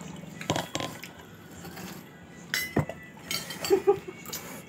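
Scattered clinks and knocks of spoons on plates and plastic cups being handled, irregular and sudden, bunching together a little past the middle.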